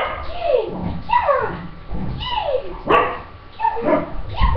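English cocker spaniel barking excitedly: about six sharp barks, each sliding down in pitch. The barking is a sign of the over-excitement she gets into during jump training.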